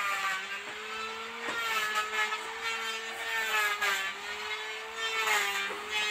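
A small engine running steadily nearby, its pitch wavering a little, with a few sharp knocks of wood or tools handled close by.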